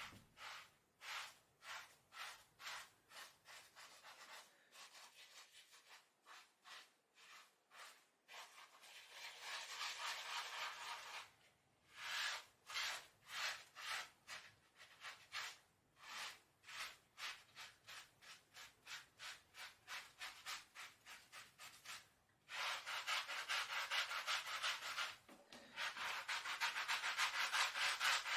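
Rhythmic back-and-forth rubbing strokes, about two a second, with a longer unbroken stretch about a third of the way in. Near the end they turn into fast continuous scrubbing.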